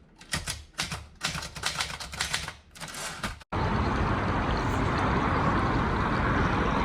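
Quick clattering clicks in uneven bursts, like typing, for about three and a half seconds, then an abrupt cut to a steady rushing outdoor noise.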